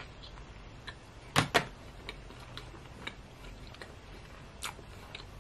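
A person chewing a mouthful of McRib sandwich: soft, scattered mouth clicks, with two sharper smacks close together about a second and a half in and one more near the end.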